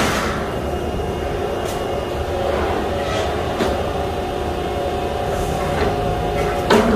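Heavy sheet-metal shop machinery humming steadily, with several sharp metal clanks; the loudest clanks come at the start and near the end.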